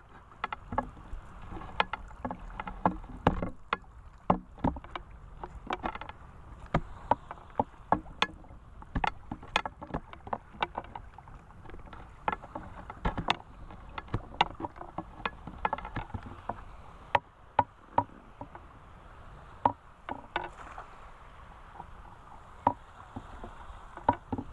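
Lake water sloshing and splashing around people wading waist-deep, with many sharp, irregular splashes as a cast net is hauled in and gathered up out of the water.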